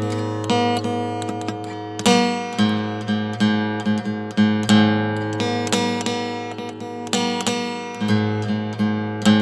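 Background music of acoustic guitar: a steady run of picked and strummed notes ringing out over a held low bass.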